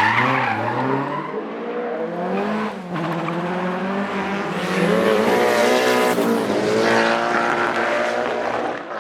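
Datsun four-cylinder sprint car under hard acceleration, the engine revving up through the gears with a brief break for a gear change about three seconds in, then rising and falling in pitch as the driver works the throttle.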